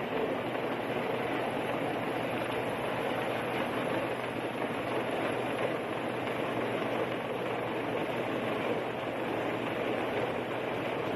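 A helicopter running steadily: continuous, even engine and rotor noise with a faint low hum beneath it.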